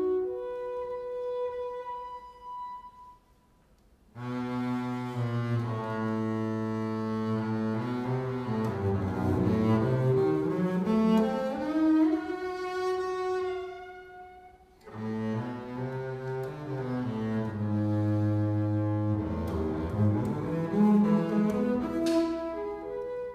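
Double bass played with a bow: sustained low notes and phrases with upward slides in pitch, broken by a short pause about three seconds in and a brief dip about fourteen seconds in.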